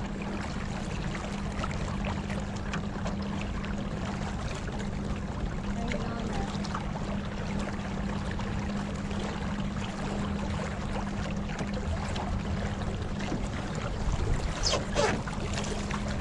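A boat's engine running steadily, a constant low hum under a rushing wash of noise. Near the end a brief wavering higher-pitched sound cuts through.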